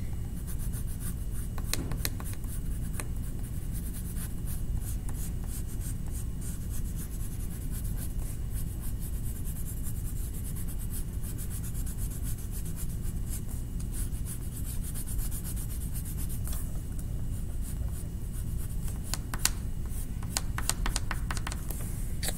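A colouring tool scratching back and forth on paper in many quick short strokes, as branches are coloured in brown.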